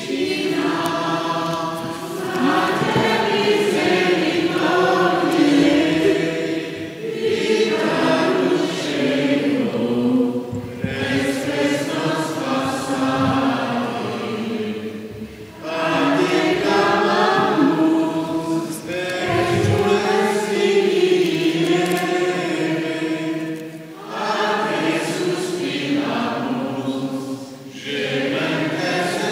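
A choir singing a hymn in slow phrases a few seconds long, with short breaks between them.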